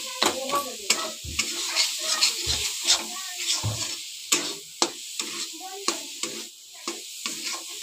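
A metal spatula scrapes and clicks against a kadhai as grated fresh coconut is stir-fried in ghee, with a sizzle underneath and a few dull knocks of the spatula on the pan. The coconut is being roasted until its moisture cooks off.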